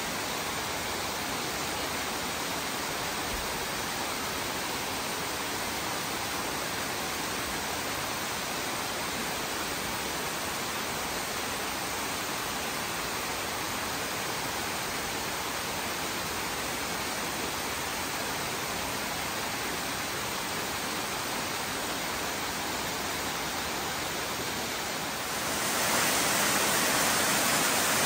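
Amicalola Falls, a tall mountain waterfall cascading over rock ledges, rushing steadily. The rush grows louder and brighter about three-quarters of the way through.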